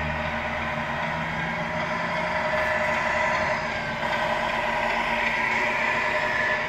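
Simulated diesel truck engine from the model's Tamiya MFC-01 sound unit, running steadily through its small speaker as the RC truck drives. It grows a little louder about two seconds in.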